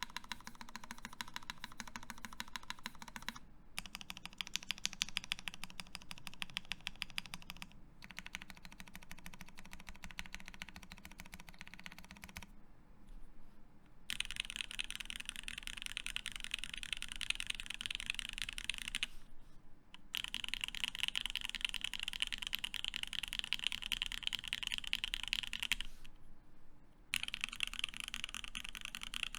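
Fast typing on a Keycult No.1/65 mechanical keyboard with lubed Tealios linear switches in an aluminium plate: a dense stream of keystrokes in runs broken by several brief pauses. The runs in the second half sound brighter.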